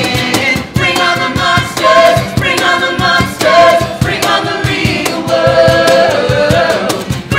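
An ensemble of men and women singing a rock musical-theatre song together in harmony, to a strummed acoustic guitar with a steady beat.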